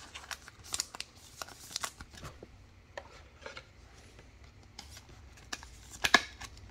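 Thin plastic card sleeve crinkling and clicking as a trading card is slid into it: a run of short, scattered rustles and clicks, the loudest a little before the end.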